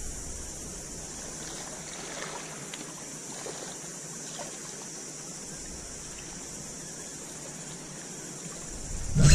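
Sea water washing softly against the rocks of a jetty, a steady quiet wash, with a sudden louder rush of noise near the end.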